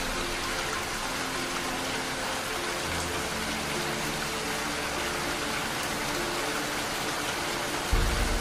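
Steady rain hiss under soft, slow background music of held notes; a deep bass note comes in near the end.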